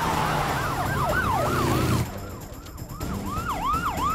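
Several police car sirens wailing together in quick, overlapping up-and-down sweeps over a low rumble. They drop away briefly about halfway through, then come back.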